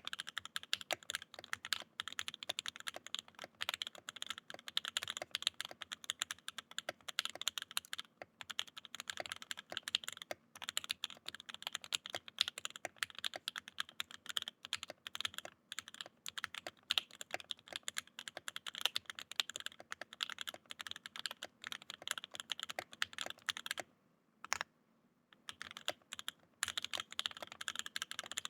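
Steady, fast typing on a Mode Eighty mechanical keyboard with c3 Fierce Girl switches lubed with Krytox 205g0 and filmed, on an FR4 plate with no foam between PCB and plate: a dense stream of keystroke clacks. The typing stops briefly about 24 seconds in, then resumes.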